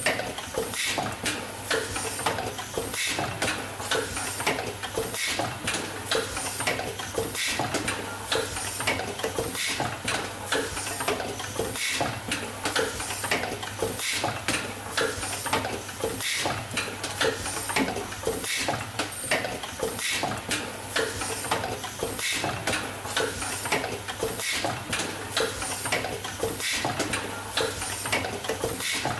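Automatic multi-station assembly machine running: a constant rapid clatter of small clicks and knocks from its pick-and-place units and presses, over a steady low hum.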